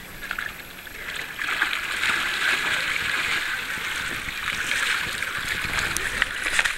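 Dogs wading and splashing in shallow lake water: a steady splashing and sloshing that picks up about a second in.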